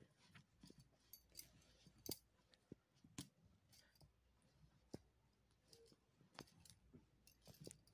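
Faint, irregular clicks, about a dozen spread over several seconds, against near silence: a green parakeet's beak nibbling and tapping at a hollow plastic toy parrot.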